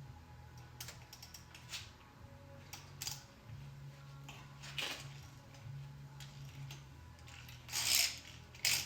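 Socket wrench and socket on a spark plug of an LS V8, giving scattered metallic clicks and clinks as the plug is worked loose, with a louder scrape near the end.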